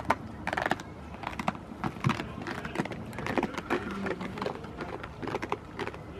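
Irregular clicks and knocks as goats climb and jostle on and around a seated person.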